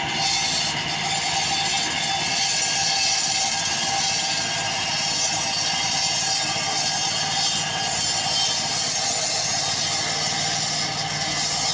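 Walk-behind petrol concrete floor saw running steadily while its water-fed diamond blade cuts a groove in a concrete floor: a steady engine note under a high, hissing grind from the blade.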